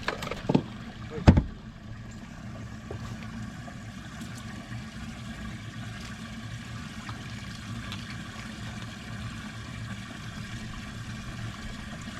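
Steady low rumble of a boat on the water, with two sharp knocks within the first second and a half, the second louder.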